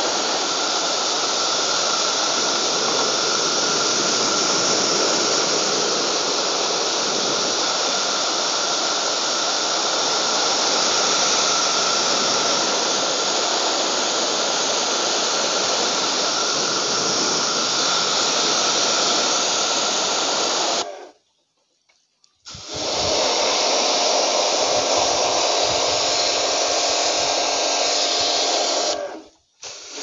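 Pressure washer spraying a high-pressure jet of water onto the dirty coil and casing of a split air-conditioner indoor unit, a loud, steady hiss. The spray cuts out for about a second and a half two-thirds of the way through, then again briefly near the end.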